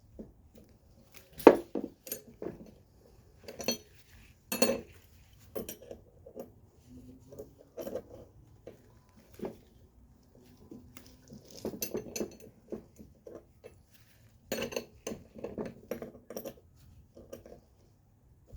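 Steel hand tools clinking and knocking against metal strut parts in an irregular run of sharp clanks while the strut's top nut is worked down. The loudest knocks come about a second and a half in and again near four and a half seconds, with a busier patch of clinks toward the end.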